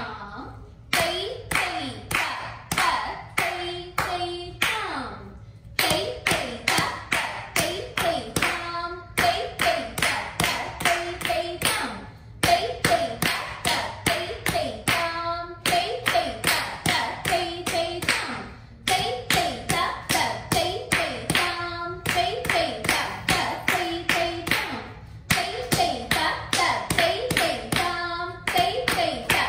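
Bare feet stamping flat on a hard floor in a fast, even rhythm, about four stamps a second, in phrases of roughly three seconds with short breaks: Bharatanatyam thattadavu footwork. A voice chants the rhythm syllables along with the stamps.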